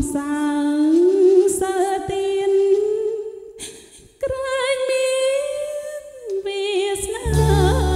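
A woman singing a Khmer song almost unaccompanied, holding long notes with vibrato. She breaks off briefly about halfway and then takes a higher held note. The band, with bass and drums, comes back in near the end.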